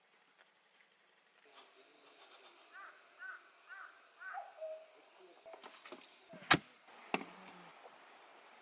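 A bird calls four times in quick succession, short rising-and-falling calls over faint outdoor background. A few seconds later come two sharp knocks or clicks, the loudest sounds here.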